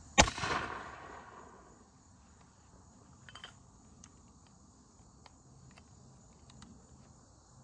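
A single shot from a black-powder muzzleloading 12-gauge shotgun about a quarter second in: one loud blast whose echo dies away over about a second. Crickets chirp steadily in the background, with a few faint clicks later on.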